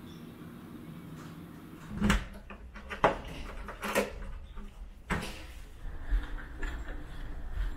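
A cabin door is shut and locked with a key: a run of sharp clicks and knocks, about a second apart, from the latch and the cylinder lock. A low rumble runs underneath from about two seconds in.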